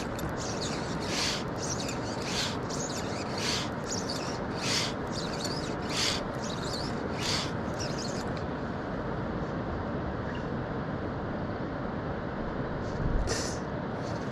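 Mountain stream rushing steadily over rocks. Short scuffing swishes recur about every second and a quarter over the first half, with one more near the end.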